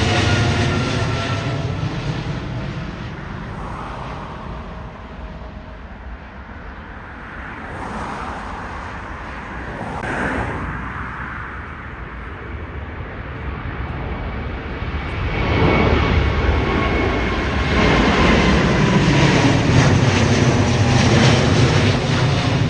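Jet airliners passing overhead: the engine noise of one fades away at the start with its tones falling in pitch, then another grows loud from about two-thirds of the way through and stays loud.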